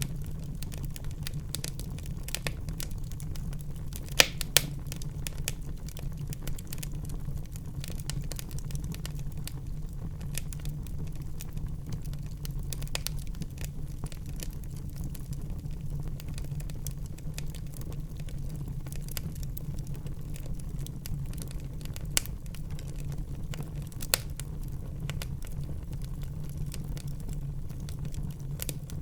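Wood fire burning in a fireplace: a steady low rumble with constant fine crackling and a handful of louder, sharper pops scattered through it.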